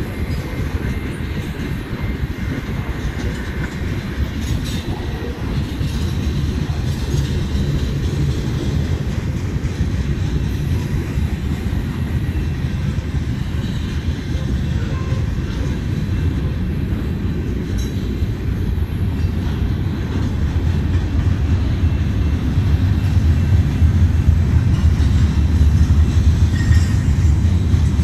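Freight cars of a long mixed freight train rolling past: a steady low rumble of steel wheels on rail, growing louder over the last few seconds.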